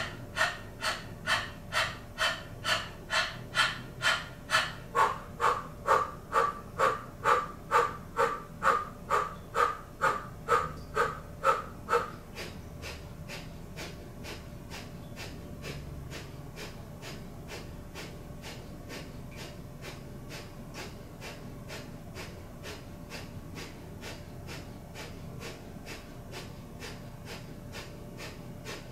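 Rhythmic open-mouthed panting, about two quick breaths a second, changing in tone about five seconds in. At about twelve seconds it gives way to quieter, quicker, even nasal breaths: Kundalini yoga breath of fire, rapid shallow pumping from the navel.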